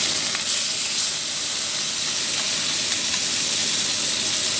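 Tofu frying in hot oil in a wok: a steady sizzle with a few faint pops as it crisps.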